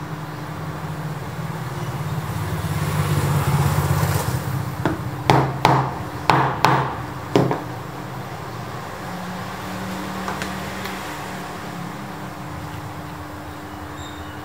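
Steady low rumble of traffic with a steady hum, swelling for a couple of seconds as if a vehicle goes by. Five sharp knocks come in quick succession about five to seven and a half seconds in.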